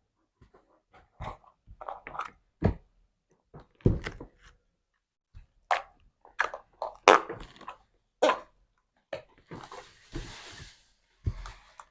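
Slime being squeezed, poked and pulled by hand: a run of short, irregular squelches and pops, with a softer hiss lasting about a second and a half near the end.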